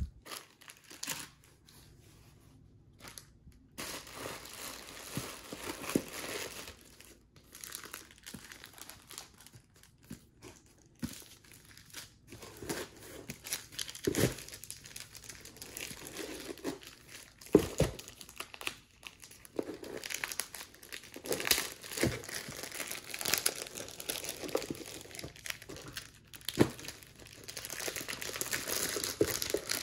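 Plastic air-pillow packing and shrink wrap crinkling and rustling as hands dig through a cardboard box and lift out shrink-wrapped paperback books, with a few knocks of books against the cardboard along the way.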